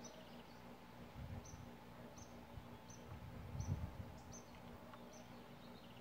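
A small bird chirping, a short high chirp repeated about every 0.7 seconds. Two low rumbles, about a second in and near four seconds, are the loudest moments.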